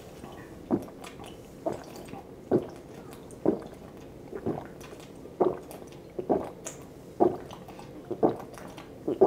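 A person gulping whiskey straight from the bottle, about ten swallows in an even rhythm of roughly one a second.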